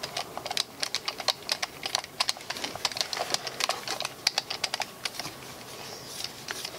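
Yellow-handled hand driver clicking in quick, irregular runs as it turns an action screw down into a rifle stock. The clicks thin out about five seconds in.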